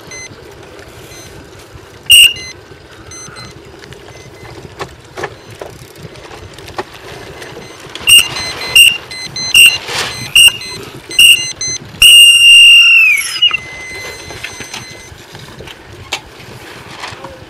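High-pitched race-start sound signal: one short blast, then a countdown of five short blasts about a second apart and a long blast that drops in pitch as it dies away, over steady wind and water noise.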